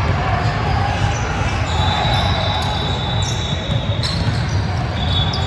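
Basketball game sounds: a ball bouncing on the court amid the busy noise of players and spectators' voices.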